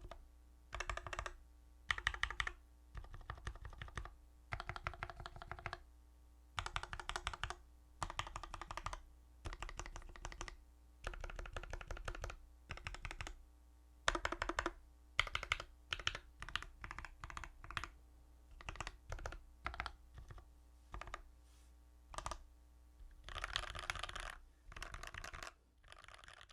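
Typing on a YMDK Wings mechanical keyboard with lubed Durock linear switches and case and plate foam: quick runs of key presses in bursts of one to two seconds with short pauses between them, and a faint steady hum underneath.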